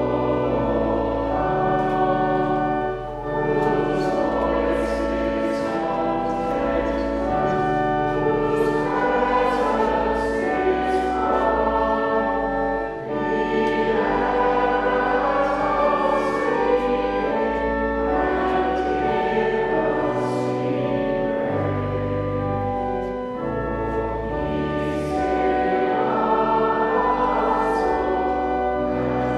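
Voices singing a hymn in slow, sustained phrases with organ accompaniment, which carries deep held bass notes beneath the melody.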